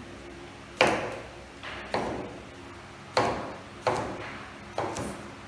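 Kitchen knife chopping through a cucumber onto a plastic cutting board: five sharp, separate chops about a second apart.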